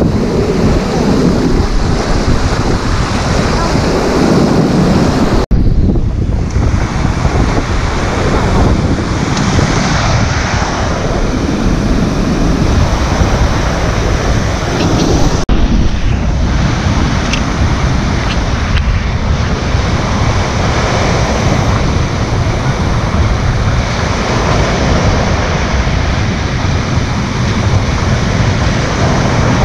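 Ocean surf breaking and washing up the sand in a steady rush, with strong wind buffeting the microphone.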